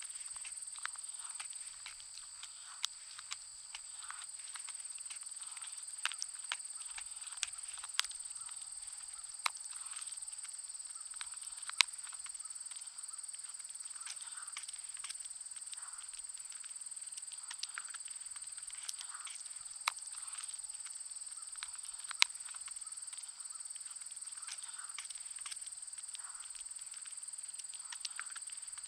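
A Schnauzer-pug mix dog chewing a bone: irregular crunches, snaps and clicks, a few of them sharper and louder. Behind it runs a steady high-pitched insect drone.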